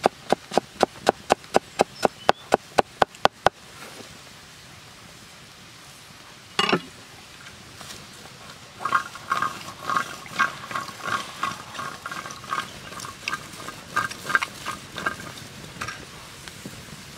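Large cleaver-style knife chopping green onions on a wooden board, quick even strokes about four a second that stop after about three and a half seconds. Later comes a single knock, then a run of rhythmic clicks and scrapes.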